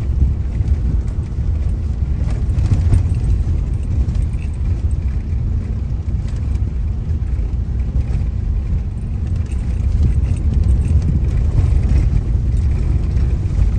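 Steady low rumble of a car driving slowly along a road, heard from inside the cabin.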